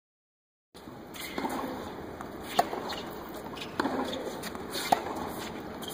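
Tennis ball struck back and forth by rackets in a rally: three sharp pops about a second apart, the first and last the loudest, over steady background noise. The sound begins under a second in.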